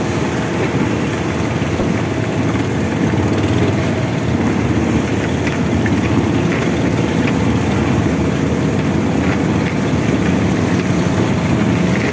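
Fishing boat's engine running steadily under way, with the rush of spray and choppy waves along the hull.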